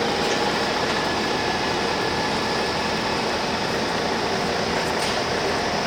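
Heavy vehicle running steadily, an even mechanical rumble and rush of noise with no distinct events.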